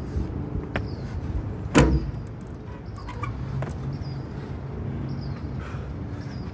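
Steady low hum of road traffic or an idling car engine, with one heavy thud about two seconds in as feet land on the rubber court during a burpee.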